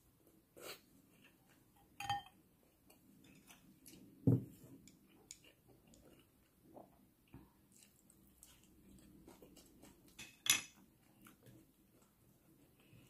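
Tableware clatter while eating: wooden chopsticks and fingers knocking against ceramic bowls, with a ringing clink about two seconds in, a dull knock about four seconds in, and a sharp clink about ten seconds in. Soft chewing between the knocks.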